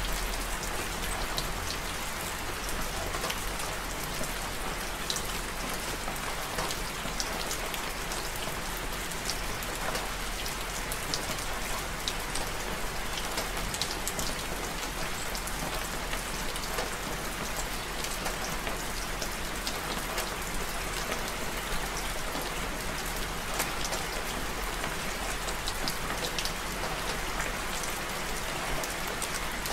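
Steady rain falling, an even hiss with many small scattered drop hits. It stays level throughout, with no thunder.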